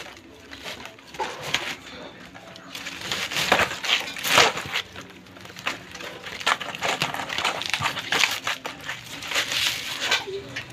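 Fibrous husk being torn and pulled off a sprouting coconut by hand: a run of irregular, dry ripping and crunching scrapes, loudest about four seconds in.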